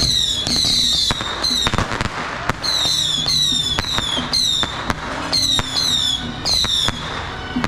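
Firecrackers going off in rapid sharp pops, mixed with repeated short high whistles that fall in pitch, about a dozen of them.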